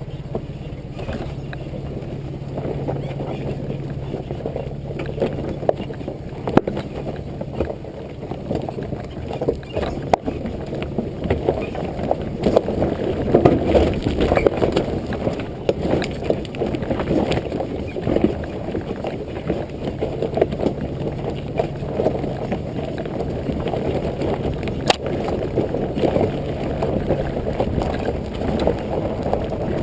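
Muffled rumble of a 2005 Nissan Xterra's 4.0-litre V6 and its tyres on a dirt track, heard from low on the rear bumper, with a steady low engine hum and frequent knocks and clatters from stones and bumps under the wheels.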